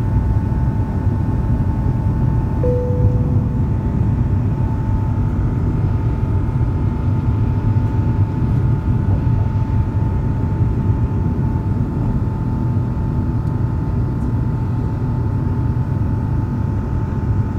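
Airbus A350-941 climbing out after takeoff, heard inside the cabin: its Rolls-Royce Trent XWB-84 turbofans at climb thrust make a steady, heavy rumble with a steady whine over it. A short ringing tone sounds and fades about three seconds in.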